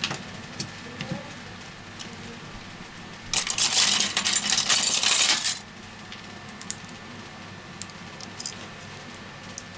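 Hands handling a phone's midframe and replacement display module on a rubber repair mat: a few light taps and knocks, then a loud crackling rustle lasting about two seconds from about three seconds in.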